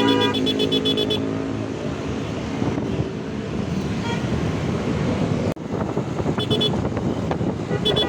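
Road and wind noise of riding through traffic, with a vehicle horn sounding as it begins and cutting off a moment later. Short bursts of rapid high beeping come twice in the second half.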